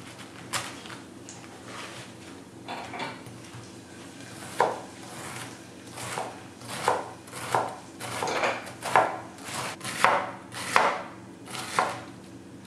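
Kitchen knife chopping vegetables on a cutting board. A few scattered strokes at first, then a steadier run of chops, about two a second, through the second half.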